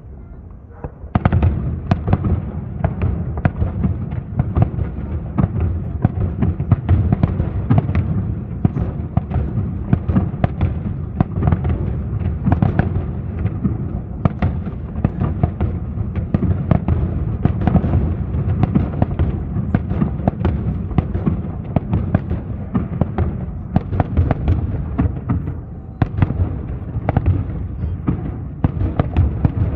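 Fireworks display: a dense, continuous barrage of shell bursts and bangs, many a second, that starts about a second in, with a brief lull near the end.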